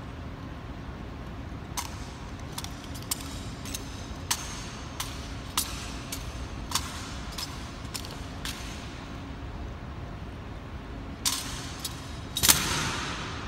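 Ceremonial rifle drill by an honor guard: a series of sharp, separate clacks as the bayonet-fixed rifles are slapped, spun and caught in unison. Near the end comes a louder impact that echoes off the stone walls and dies away slowly.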